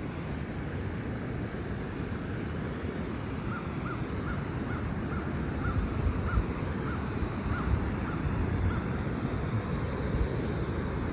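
Steady rush of the creek's water pouring over the limestone falls. In the middle, a bird gives a run of about ten short calls, roughly two a second.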